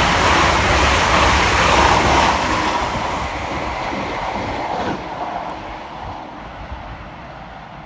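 Two coupled Class 350 Desiro electric multiple units passing fast through a station, with loud rushing wheel and air noise that fades away after about two seconds and has mostly died down by the end.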